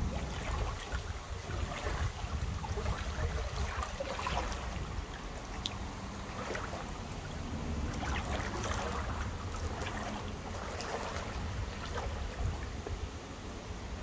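Stream water flowing and trickling, a steady splashy wash with small splashes scattered through it, over a steady low rumble.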